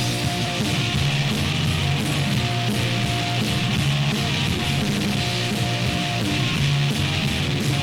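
Noise rock: a loud, dense wall of distorted electric guitar strummed without a break, with a hissing wash of noise above it.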